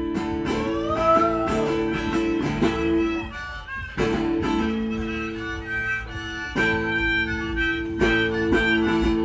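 Instrumental blues ending: a harmonica playing held and bent notes over a strummed acoustic guitar.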